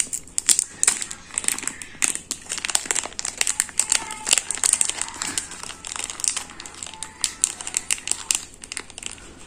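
Clear plastic packaging bag crinkling and rustling in the hands as it is opened and handled, a dense run of quick, irregular crackles.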